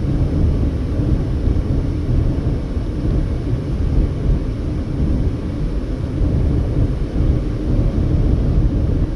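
Steady low rumble of a car travelling at highway speed: road, tyre and engine noise.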